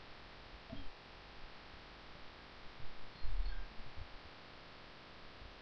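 Faint steady microphone hiss with a few soft low thumps and faint clicks, mostly between about 3 and 4 seconds in, from a computer mouse being moved and clicked on a desk.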